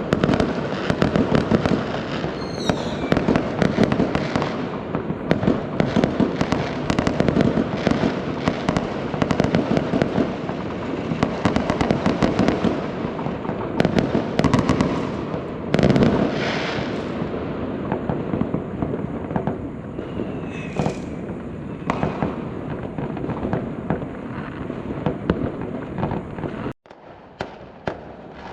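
Fireworks and firecrackers going off in a dense, continuous barrage of bangs and crackle, with a couple of whistling rockets. Near the end the din drops abruptly to a few scattered pops.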